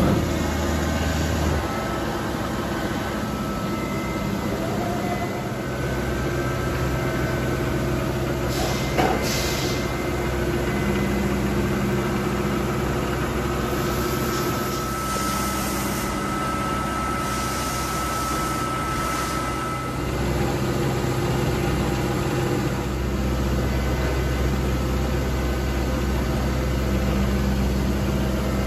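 Bridgeport Interact 1 CNC bed milling machine running under power: a steady motor hum with low drones and thin whining tones that come and go as it works. A sharp click comes about nine seconds in, and a hiss rises from about 15 to 20 seconds in.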